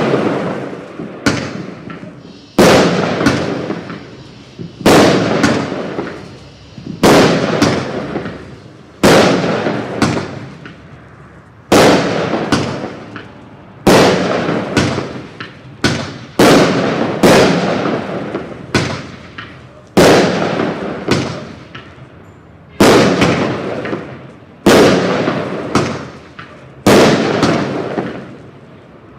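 Aerial firework shells bursting in a steady series, a loud bang about every two seconds, often with a quicker second report close behind. Each bang trails off over a second or two.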